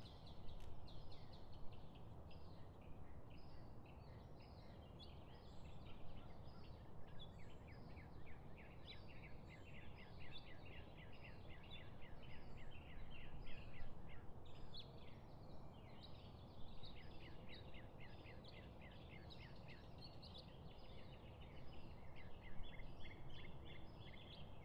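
Small birds chirping many times over a low, steady background hum.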